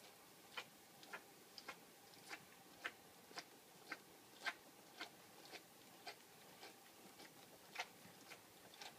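Nine-day-old golden retriever puppy suckling at its mother's teat: faint, short smacking clicks a little under twice a second, in a loose rhythm.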